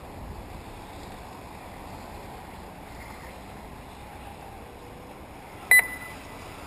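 A short, loud, high-pitched electronic beep with a double start about five and a half seconds in, over steady background noise.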